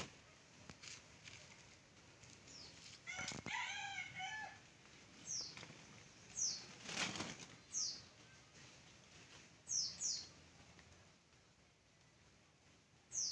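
Faint bird calls: short, high chirps falling in pitch, repeated every second or two, with a rooster's wavering crow about three seconds in. A couple of brief rustling noises.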